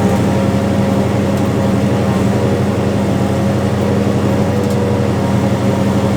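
Farm tractor engine running steadily under load while pulling a seed planter, an even drone that does not change.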